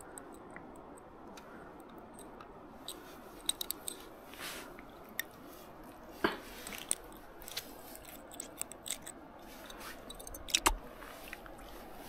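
Faint, scattered small clicks and rustles of hands handling a small trout and working the hook out of it, over a steady low background hiss. The sharpest clicks come about halfway through and again near the end.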